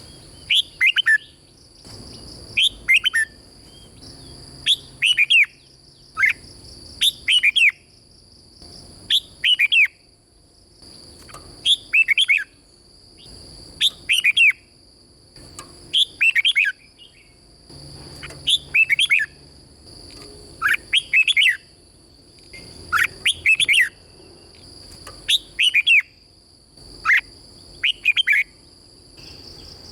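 Red-whiskered bulbul singing short, loud whistled phrases over and over, one about every two seconds, each a quick run of falling notes. A faint steady high-pitched tone sits underneath.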